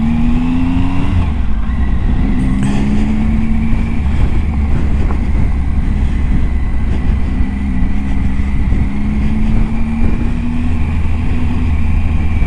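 Triumph Tiger 800 XCA's three-cylinder engine pulling the bike along a gravel track. The engine note rises in pitch three times as the throttle opens, over a steady low rumble.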